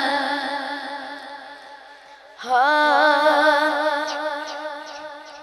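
A boy singing a naat into a microphone, holding long wavering notes without words: one held note fades away over about two seconds, then a second long note starts about two and a half seconds in and slowly fades.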